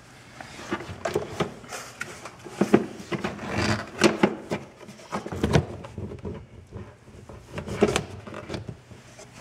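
A new engine air filter and the plastic airbox housing being handled and fitted, with irregular hollow plastic knocks and clicks and some rustling between them.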